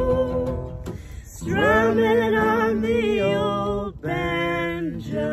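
A man and a woman singing a folk song together over a strummed acoustic guitar, holding long notes, with two short breaks, about a second in and near four seconds.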